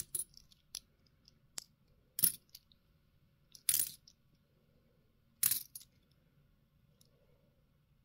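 2-euro coins clinking against one another as they are handled in the hand: a few light clicks in the first two seconds, then three louder clinks about one and a half seconds apart.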